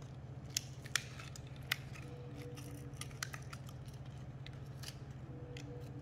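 Fishing-lure retail packaging of plastic and cardboard being handled and pulled open by hand: scattered crinkles and sharp clicks, the loudest few in the first two seconds, over a steady low hum.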